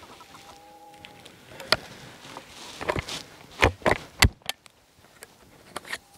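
Footsteps pushing through dry prairie grass and brush, with a run of sharp crunches and snaps in the middle. Near the start a short steady tone sounds for about a second.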